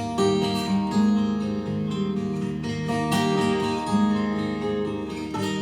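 Acoustic guitar playing an instrumental passage between sung verses of a Scottish folk song.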